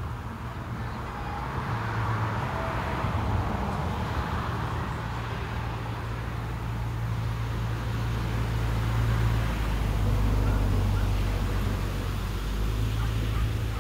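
Motor vehicle traffic: a steady low engine hum that swells and eases off twice, like vehicles passing.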